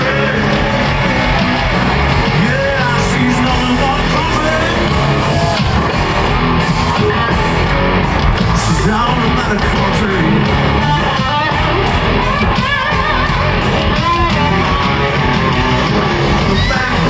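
Live country-rock band playing loudly with electric guitars, drums and singing, heard through a stadium sound system from the crowd.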